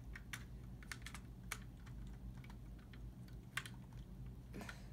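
Light plastic clicks and taps of LEGO pieces being handled and pressed together, a handful of sharp ones spaced irregularly.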